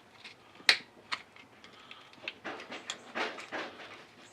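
An old floor-mounted headlight dimmer switch and a chunk of rusted floor being worked by hand. A sharp click comes under a second in, then another click, then scraping and small clicks of brittle plastic and metal as the stuck switch is pried at.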